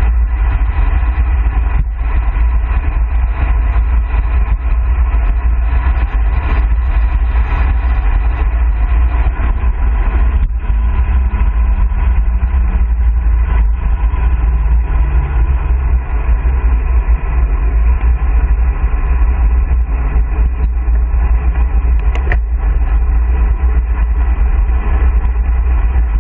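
Loud, steady wind rush buffeting a handlebar camera's microphone on a road bike descending a mountain pass at about 35 to 55 km/h.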